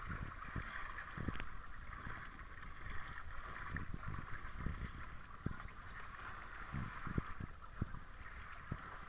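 Sea water sloshing around a small boat, with a steady hiss of wind and scattered low knocks and bumps.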